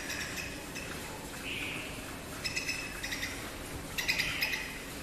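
A bird calling: three bursts of rapid, high-pitched chattering notes, the second and third about one and a half seconds apart, with a softer hoarse note between the first two.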